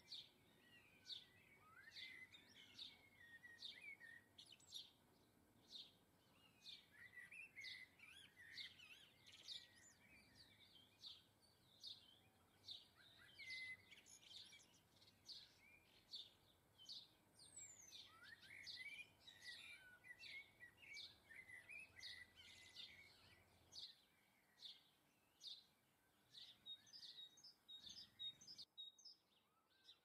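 Faint garden songbirds chirping and twittering, with many short high calls following one another throughout.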